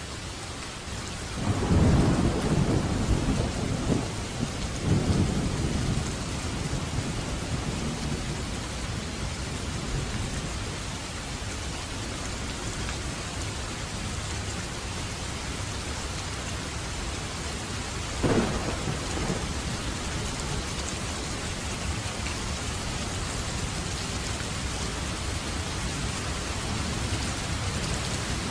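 Heavy rain falling steadily, with a rolling clap of thunder starting about a second and a half in and rumbling for several seconds, and a shorter, sharper thunder crack near the middle.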